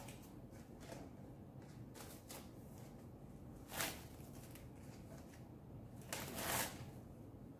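Clear plastic wrapping crinkling and rustling as it is pulled off a salmon fillet, with scattered small crackles and two louder rustles, about four and six seconds in.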